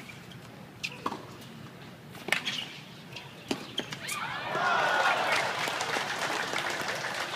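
Tennis rally: a few sharp racket hits and ball bounces on the hard court, about a second apart. About four seconds in, a louder mix of spectators' voices and clapping rises as the point ends.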